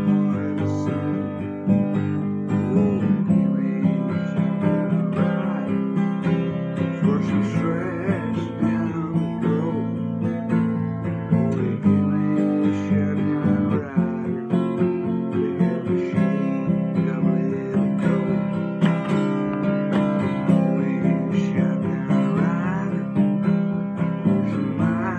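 Acoustic guitar strummed steadily, with a man's voice singing over it at times.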